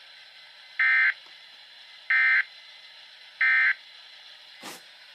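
Three short, evenly spaced bursts of alert data tone, the SAME digital code of a weather-radio emergency alert, each about a third of a second long and a little over a second apart. A faint click follows near the end.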